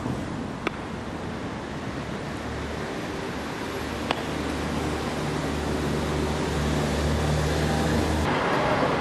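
Street background noise with a motor vehicle's engine running as a low steady hum from about two and a half seconds in, cutting off suddenly near the end. Two short sharp clicks, one near the start and one about four seconds in.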